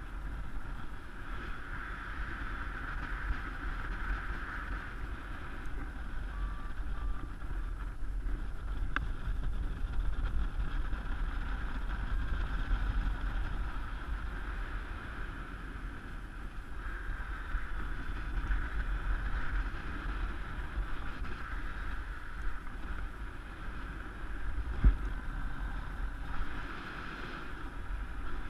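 Airflow buffeting the camera microphone during a paraglider flight: a steady, gusting wind rumble with a hiss that swells and fades. There is one brief thump about 25 seconds in.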